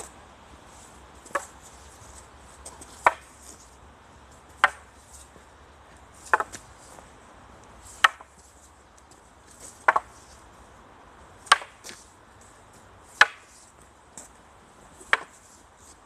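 Two long wooden staffs clacking against each other in a paired staff drill: about nine sharp knocks at an even pace, one every second and a half to two seconds, a few of them doubled.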